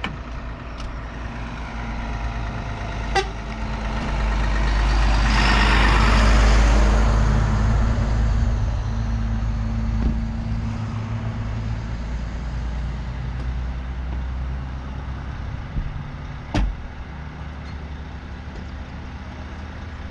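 Engines of lorries and cars idling in a slow-moving queue, a steady low hum. About four seconds in a louder rushing noise swells up, peaks and fades out over several seconds, and there are two sharp knocks, one about three seconds in and one near the end.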